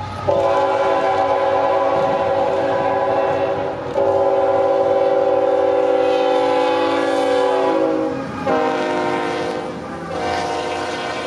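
A CN freight diesel locomotive's air horn sounds a multi-note chord in repeated long blasts as the train approaches and passes. About eight seconds in, the chord drops in pitch as the locomotive goes by. Another blast comes near the end over the rumble of the freight cars rolling past.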